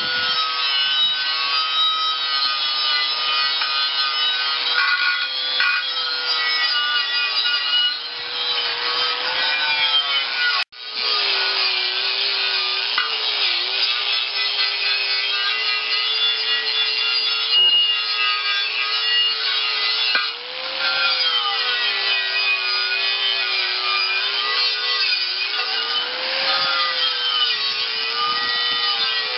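Angle grinder with a wire cup brush scrubbing rust off a steel tractor wheel rim: a steady motor whine over a harsh scraping hiss, the whine wavering in pitch as the brush works the metal. It stops briefly about ten seconds in, then runs on.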